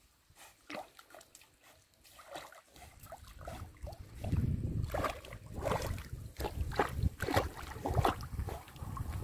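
Portuguese water dog paddling through pool water: irregular splashing and sloshing, faint at first and louder from about three seconds in, with a low rumble underneath.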